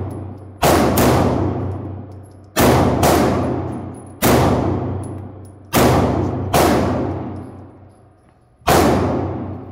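A string of pistol shots from a Canik TP9 9mm pistol, about eight in all, irregularly spaced: two close together near the start, another pair about two and a half seconds in, then single shots. Each sharp crack rings on in a long echoing decay off the walls of the indoor range.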